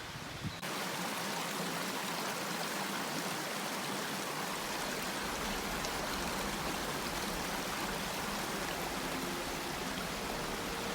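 Mountain stream rushing steadily, an even hiss of flowing water that cuts in abruptly about half a second in.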